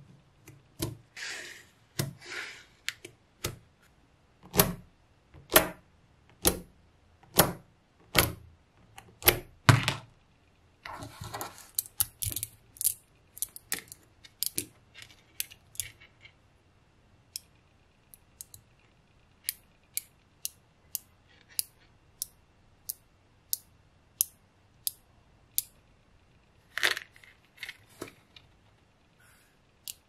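Small magnetic balls clicking sharply together one at a time as they snap into place, with a few short rattling bursts of many balls shuffling against each other.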